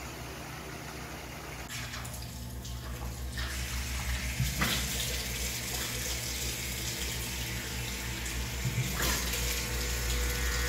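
Water running from a tap into a sink basin, growing louder, with a few brief splashes as hands scoop it.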